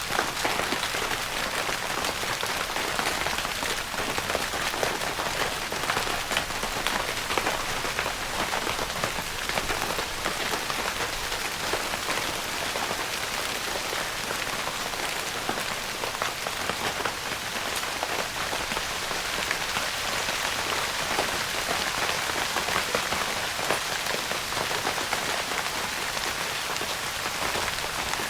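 Steady rain pattering on a tent's fabric roof, a dense, even patter of countless drops.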